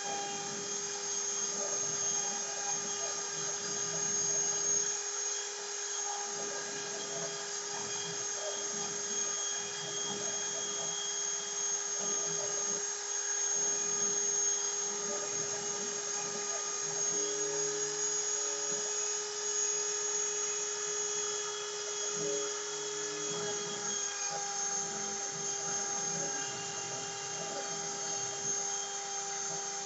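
CNC router running steadily with a high-pitched spindle whine, and a lower motor hum joining briefly twice in the second half as the machine moves.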